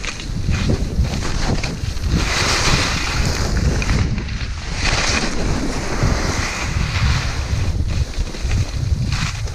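Wind rushing over the microphone while skis hiss over the snow, swelling in surges every couple of seconds.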